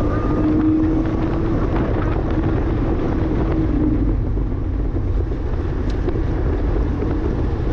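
2009 Porsche Cayman S's flat-six engine pulling hard at speed, with heavy wind and road rumble. The engine note rises slowly, then fades into the rumble about halfway through.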